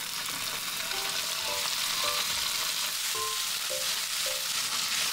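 Whole Harpadon 'tofu fish' (small-fin Bombay duck) sizzling steadily in hot oil in a frying pan, the wet fish spitting as they fry.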